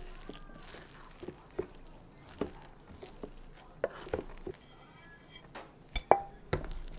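A plastic rice paddle stirring and scooping freshly cooked turmeric rice in an electric rice cooker's inner pot: soft scrapes and short taps of the paddle against the pot, with a louder ringing clink a little after six seconds as rice is scooped into a bowl.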